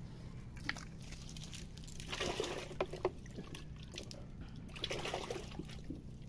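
Wet mud and water squelching and sloshing as mangrove clams are dug out and handled, in bursts about two seconds in and again near five seconds, with a few sharp clicks.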